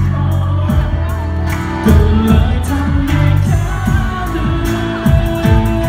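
Live pop band playing a song, with singers over keyboard and acoustic and electric guitars, on a steady beat.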